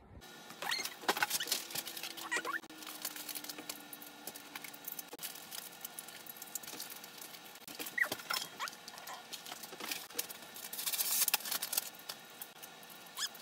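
Paper wrapping: tissue and wrapping paper rustling and crinkling in many small clicks, with a busier crackle of paper near the end and a few short squeaks.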